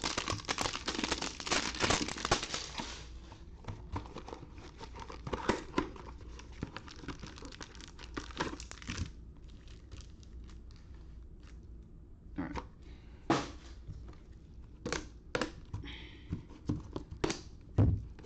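Plastic wrapping on trading-card hanger boxes being torn open and crumpled by gloved hands, crinkling densely for the first few seconds, then thinning out. In the second half, scattered light knocks and taps as boxes and card stacks are handled and set down, the loudest one near the end.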